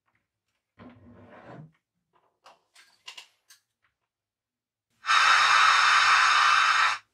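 Pioneer car stereo head unit being switched on, with a brief rough noise about a second in and a few small clicks. About five seconds in, loud, steady FM radio static hisses from its car speakers for two seconds and cuts off suddenly.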